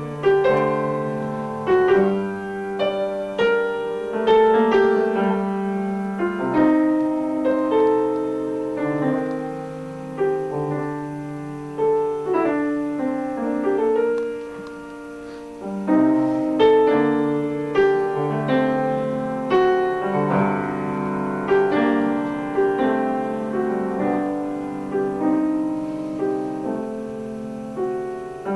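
Solo piano playing, single notes and chords struck one after another and left to fade.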